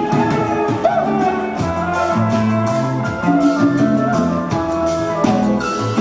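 Live band playing a reggae song: drum kit, bass line and guitars with sustained keyboard and other pitched notes over a steady beat.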